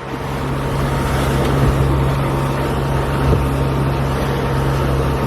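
Steady low engine drone that starts abruptly and holds an even hum.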